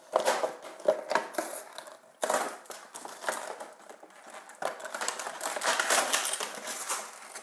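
Clear plastic toy packaging crinkling and crackling as it is handled and the plastic tray is pulled out of the box. The crackling comes in bursts, near the start, again about two seconds in, and most steadily from about four and a half seconds in.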